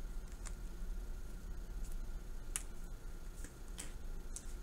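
Faint, scattered clicks and scratches from small handling noises at a desk, about five in all, over a steady low hum.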